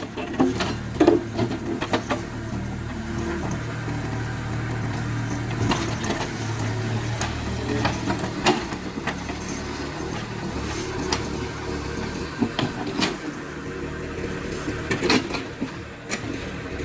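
Caterpillar 307C mini excavator's diesel engine running steadily under working load, with irregular sharp knocks and clanks of the bucket and stones scattered throughout.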